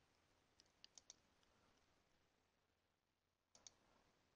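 Faint computer mouse clicks: a quick run of clicks about a second in and another pair near the end, with near silence between.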